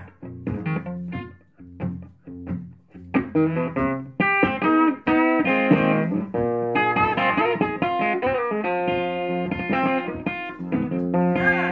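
Blues guitar playing an instrumental break in a song. It opens with picked notes, and from about three seconds in there are long, held notes, some of them bending in pitch.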